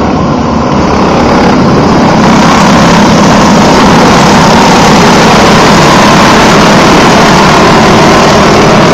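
A pack of small-engined champ karts racing on a dirt oval, their engines running loud together and getting louder about two seconds in as the field comes past close by.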